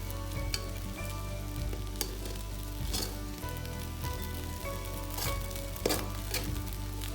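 Food sizzling as it is stir-fried in a pan, with a few sharp clicks of the utensil against the pan.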